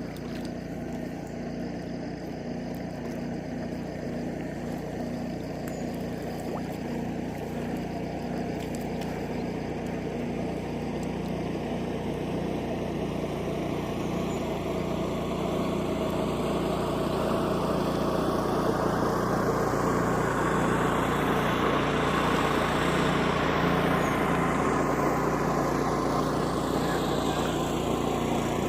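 Small motorboat engine running steadily, its drone growing louder through the second half.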